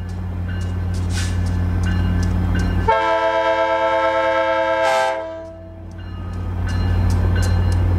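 A diesel freight locomotive's air horn sounds one long chord of several tones for about two seconds near the middle. Before and after it there is a steady low rumble with regular faint ticks.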